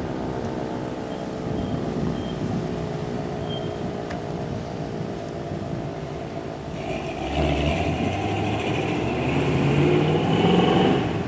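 A motor vehicle driving by, its engine and tyre noise growing louder over the last few seconds and dropping away right at the end.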